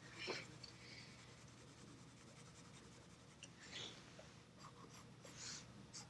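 Graphite pencil scratching faintly on drawing paper in a few short strokes, near the start, just before four seconds in and about five and a half seconds in.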